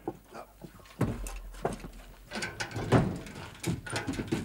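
Metal milk churns being lifted and set down, clanking and knocking several times at uneven intervals, the loudest knock about three seconds in.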